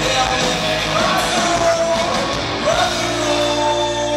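Live rock band playing with a male lead singer. About three seconds in, the singing gives way to steady held notes.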